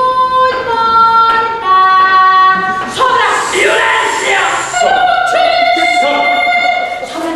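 A woman singing a series of long held notes, each stepping to a new pitch, with a breathier, noisier passage in the middle.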